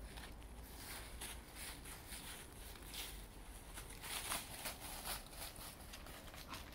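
Dry fallen leaves crackling and rustling as a dog noses and walks through them and walkers step on the leaf-covered path; the crackles are irregular and briefly louder a little past the middle.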